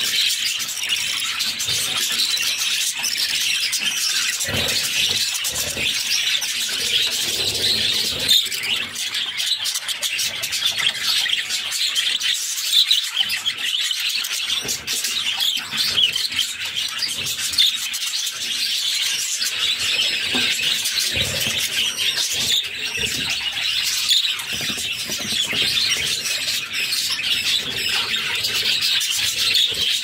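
Budgerigar chicks in the nest making a continuous, high-pitched chorus of begging calls, the sound hungry chicks make while their mother feeds them.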